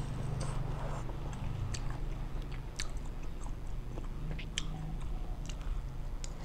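A person biting and chewing lightly blanched shrimp close to the microphone, with many small, scattered crisp clicks and wet mouth sounds.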